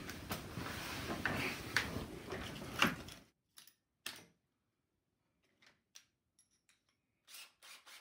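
Handling of small shop tools and parts: scattered light clicks and knocks over a hiss that cuts off suddenly about three seconds in, followed by a few faint isolated clicks.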